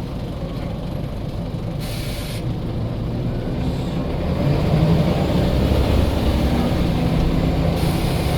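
Scania L94 bus's diesel engine running under way, growing louder and rising about halfway through as the bus pulls away. Short bursts of air hiss come about two seconds in and again near the end.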